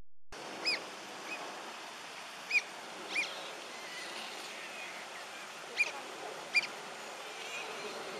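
Asian small-clawed otters giving short, high-pitched chirps, about half a dozen at irregular intervals, over a steady background hiss.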